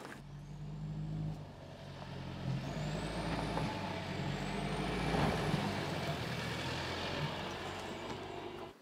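Mercedes-Benz GLC SUV driving off-road over a dirt track: a steady low engine hum with a thin high whine that rises and falls in pitch. The sound cuts off suddenly near the end.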